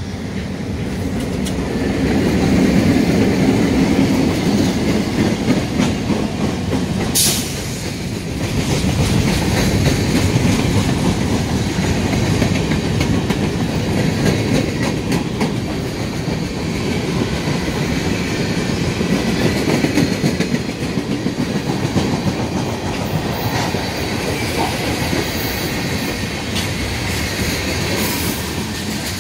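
CN freight train of covered hopper cars and tank cars rolling past at close range: a steady rumble of steel wheels on rail, with the click of wheels over the rail joints.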